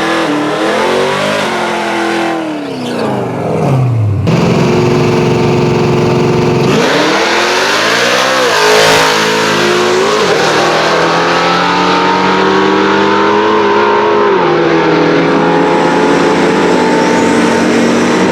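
Pontiac G8 drag car's LS V8 at full throttle on a pass down the strip. It comes up suddenly and loud about four seconds in, dips and climbs again, then drops in pitch twice, around ten and fourteen seconds in, as it shifts up.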